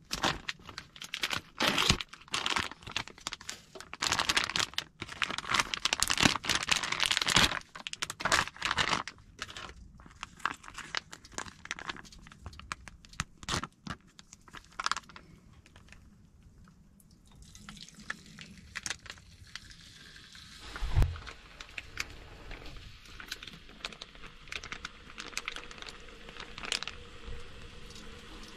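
Plastic hot pot seasoning packet crinkling and tearing as it is opened and handled, with a single thump about two-thirds of the way through. Later a soft steady sizzle with fine crackles as the seasoning paste goes into the hot frying pan on the wood stove.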